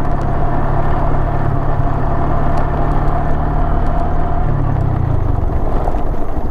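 Honda Grom's 125 cc single-cylinder engine running at low, steady speed. Its note drops and fades out about five seconds in as the throttle eases off.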